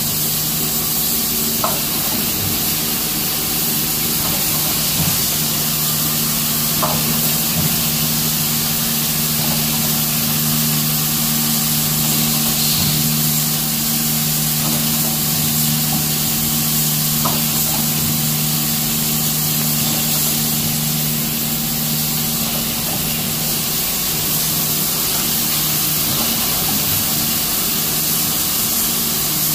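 Collated screw assembly machines running steadily: a constant low hum under a hiss, with a few faint clicks now and then.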